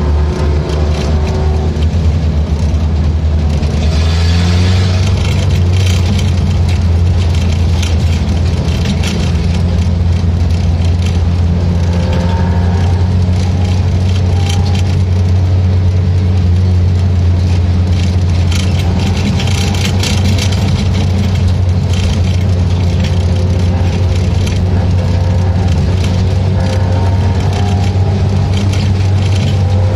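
Race car engine running hard at racing speed: a loud, steady drone whose pitch rises and falls from time to time as the throttle comes on and off, with a rushing hiss that swells now and then.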